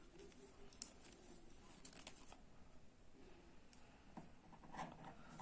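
Near silence with faint rustling and a few soft clicks as a crochet hook works cotton twine around a plastic bag-handle ring; the sharpest click comes just under a second in.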